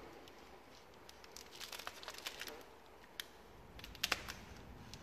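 Vinyl wrap film crinkling and crackling faintly as it is handled and trimmed with a knife blade along the back of a grille: a scatter of small crackles, with a few sharper clicks about three and four seconds in.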